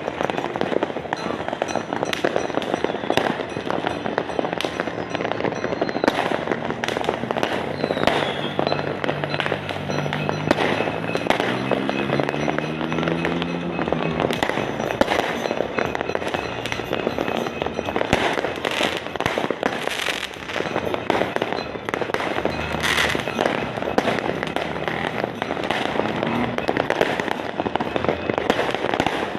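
Fireworks and firecrackers going off without a break: continuous crackling with many sharp bangs. From about eight to fourteen seconds in, a pitched tone, music-like, climbs in steps over the bangs.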